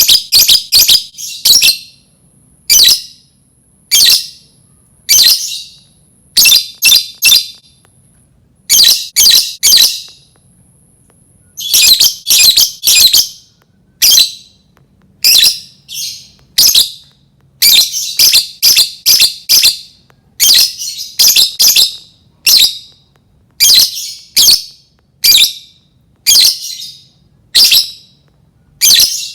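Lovebird giving loud, shrill chirping calls in short bursts, some single and some in quick runs of two to four, with a pause of a few seconds about a third of the way in.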